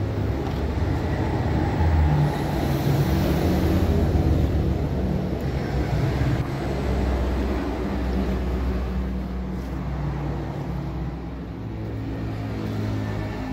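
A steady low engine rumble, like a motor vehicle running nearby, swelling and easing slightly.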